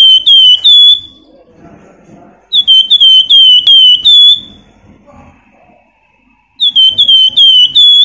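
Javan fulvetta (flamboyan, wergan jawa) singing loud, high, flute-like whistled phrases. It gives three bursts, each a quick run of five or six repeated dipping notes, with a few seconds of quiet between them.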